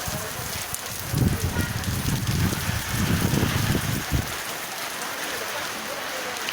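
Heavy rain pouring down in a steady hiss. From about one second in to just past four seconds it is joined by a low rumbling that comes and goes.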